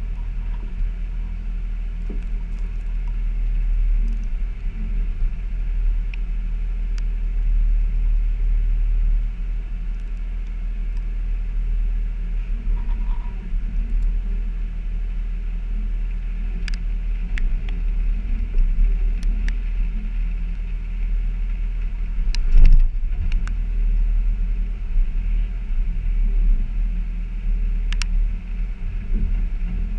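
Off-road vehicle's engine running steadily at low speed as it crawls over rocky ground, heard through the hood as a low rumble. Scattered clicks and knocks come from the vehicle working over the rocks, with one louder knock about three-quarters of the way through.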